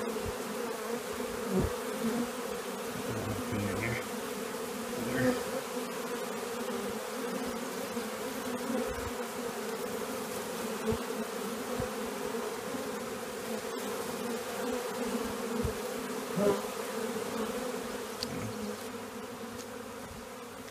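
A large honeybee swarm buzzing in a steady drone, stirred up after being shaken into a swarm box, with many bees in the air around the box. A few light knocks sound, and the buzzing gets a little fainter near the end.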